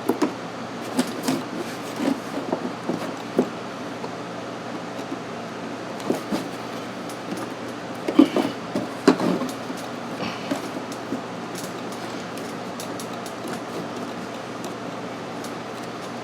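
Scattered clicks, taps and knocks of a screwdriver and hard plastic parts being handled while tight Phillips screws are backed out of a plastic air-conditioning housing. The knocks are loudest about eight and nine seconds in, over a steady background hum.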